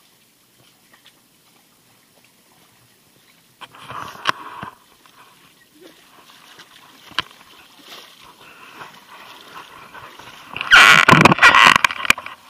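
Water splashing and sloshing close to the camera in shallow water, loud for about a second and a half near the end. Before that it is mostly quiet, with a short rustling burst about four seconds in.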